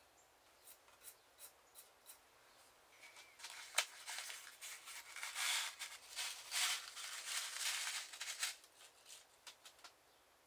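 Small brass nails tipped out of a paper envelope onto a wooden bench: paper rustling and a spill of light clicks lasting a few seconds, opening with one sharp click, with a few faint ticks before and after.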